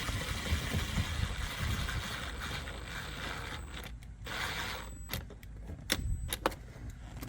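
Rustling and scraping of hands and tools working a screw into truck trim. A short burst of noise comes just after halfway, then several sharp clicks near the end.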